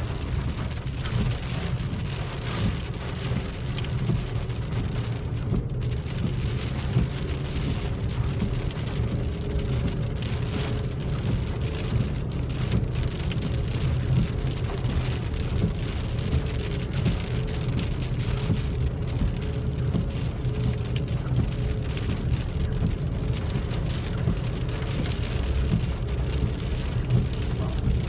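Heavy rain falling on a car's roof and windshield, heard from inside the cabin as a dense, steady crackle over a low rumble from the moving car.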